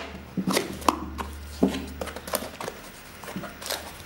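Hands opening a small cardboard box: a scatter of sharp taps and scrapes as the cardboard flaps are handled and pulled up, over a faint steady low hum.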